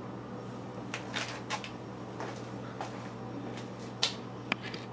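A few faint scattered clicks and light taps over a steady low hum, the loudest tap about four seconds in.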